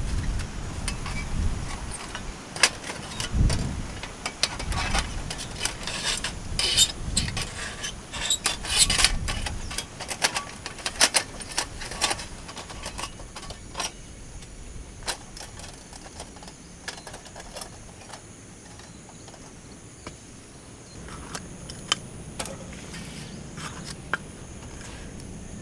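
Irregular clicks and light clatter of camp gear being handled, busiest in the first half, over a faint steady high insect drone; low wind rumble on the microphone during the first ten seconds or so.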